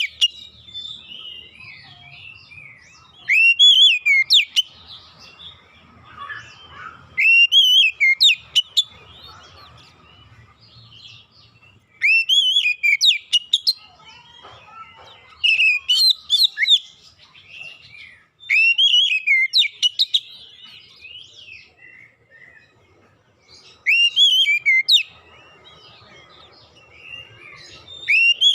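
Oriental magpie-robin singing: loud whistled phrases of sliding notes about every four seconds, with softer scattered notes in between.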